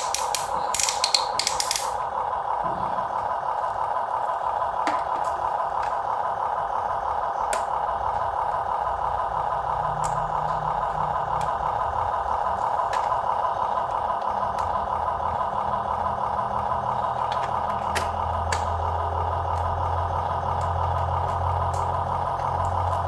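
Small electric motor and plastic gearbox of a radio-controlled construction model whining steadily, with rattling at the start and scattered sharp clicks. A lower hum joins about halfway through and grows stronger near the end.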